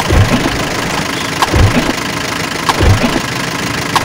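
Recorded truck engine sound running in a loop, with a low thud about every 1.3 seconds.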